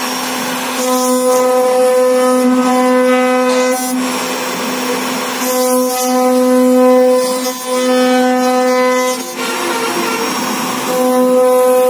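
CNC router spindle carving a relief pattern into a wooden panel: a steady high whine from the spinning spindle over the rasp of the bit cutting the wood. The whine thins out twice, around four seconds in and again near ten seconds, leaving mostly the cutting noise.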